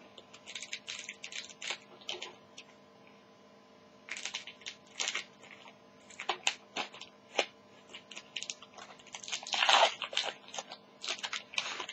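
Foil trading-card pack wrapper crinkling and crackling in irregular clusters as it is cut open with scissors and pulled apart, the loudest crackle coming near the end.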